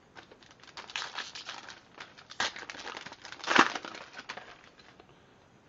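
Foil wrapper of a trading card pack crinkling and tearing as it is opened by hand, in irregular rustles with the loudest sharp rip about three and a half seconds in.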